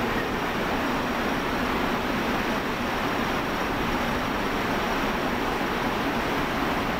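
Steady rushing background noise of a factory floor, with no staff strikes standing out.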